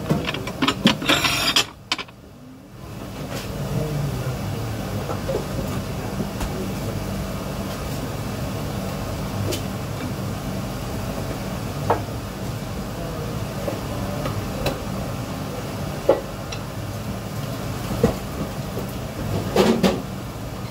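Restaurant work noise: a steady low mechanical hum with scattered clinks and knocks, and louder clatter in the first couple of seconds.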